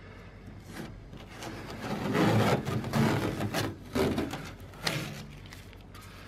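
Masking tape being peeled off a van's painted metal roof in several ripping pulls, loudest in the middle, then tailing off.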